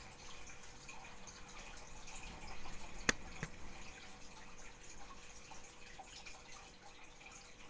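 Faint room noise with a steady low hum, broken by one sharp click about three seconds in.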